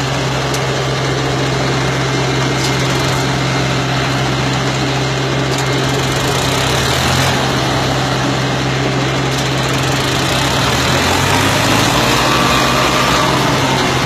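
Two diesel tractors, a John Deere and a Farmtrac 60, running hard under heavy load as they pull against each other. The engines make a loud, steady drone with no let-up.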